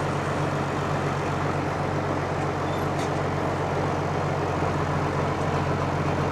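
Farm machine engine running at a steady speed, with a faint tick about three seconds in.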